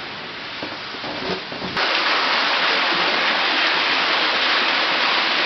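Floodwater running and splashing steadily, a rushing sound that turns sharply louder a little under two seconds in.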